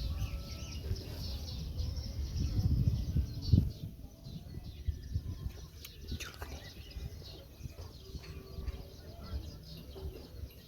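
Small birds chirping repeatedly over a low outdoor rumble, with a single low thump about three and a half seconds in.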